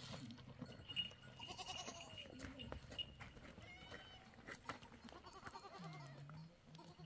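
Goats in a herd bleating faintly, with a couple of separate bleats.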